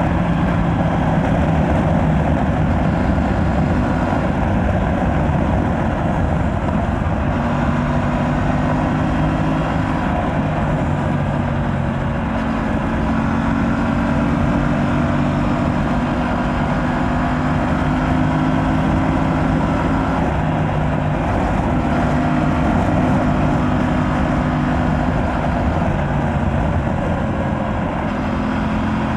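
Aprilia RS 457's 457 cc parallel-twin engine through its stock exhaust while riding, the engine note rising and falling with the throttle several times, over rushing wind.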